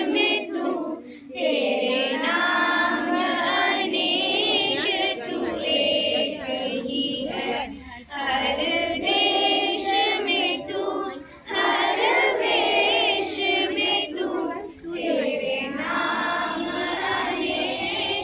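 A choir of children's voices singing a Hindi song together, with short breaks between phrases every two to four seconds.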